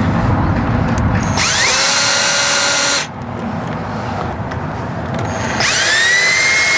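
Cordless drill driving small screws into a brake pedal. The motor runs twice, each time for about a second and a half, its whine rising as it spins up and then holding steady.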